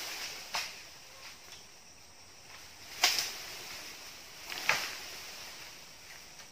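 Sharp chopping strikes into bamboo: a lighter one about half a second in, then two loud ones about three and four and a half seconds in, over a steady high hiss of insects.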